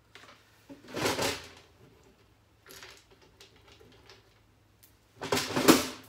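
A clear side panel being handled and fitted against a PC case: a clatter about a second in, small clicks and scrapes, then the loudest knock and scrape near the end.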